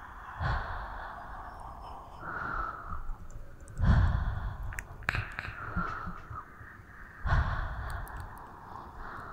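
Slow, breathy exhales close to the microphone, several in turn, the loudest about four seconds in, with a low rumble of breath hitting the mic.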